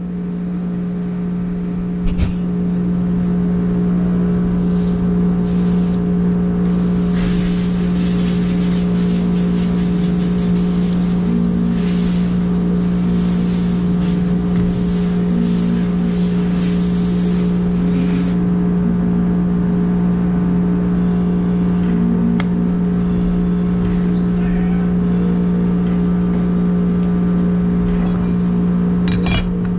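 Woodworking router motor running steadily with a constant hum. A harsher hiss rides over it from about 7 to 18 seconds, and there is a short knock about 2 seconds in.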